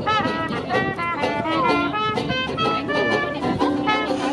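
Small street brass band with trumpet and trombone playing a tune, one note after another with no break.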